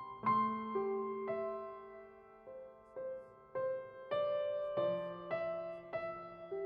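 Slow, gentle piano music: single notes and chords struck about once a second, each left to ring and fade.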